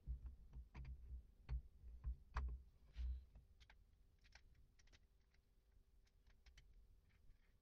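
Metal starter-motor parts knocking and clicking as they are handled and fitted together by hand: several dull knocks over the first three seconds, then light scattered clicks.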